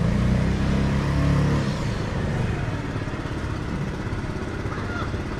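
A motor vehicle's engine passing, its pitch falling over the first two seconds, followed by a steady street hum.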